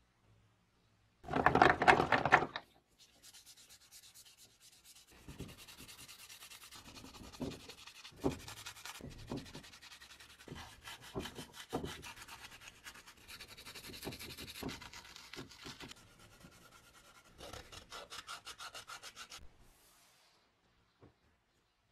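Green abrasive scouring pad scrubbing a metal tape-gun part over soapy water in quick back-and-forth strokes. A loud rushing burst lasting about a second comes just after the start.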